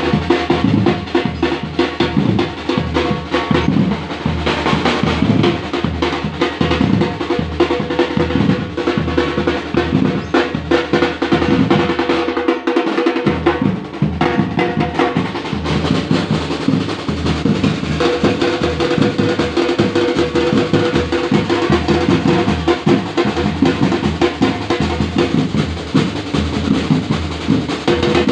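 Marching drumline of snare and bass drums playing a fast, continuous rhythm. The deepest drum notes drop out briefly about halfway through.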